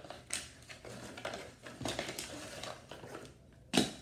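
Small clicks and rustles of jigsaw puzzle pieces being handled, with one sharper, louder knock near the end.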